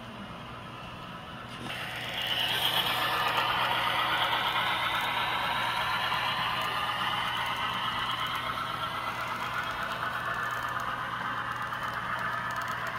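Model train of a BNSF Dash-9 locomotive and double-stack container well cars rolling along the track, with a steady rattling of wheels on rail and a motor whine. It gets louder about two seconds in as the train runs close by.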